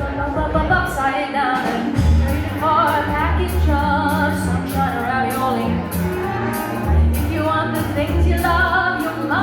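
Live jazz band playing a standard: a lead melody line over changing bass notes and a steady beat.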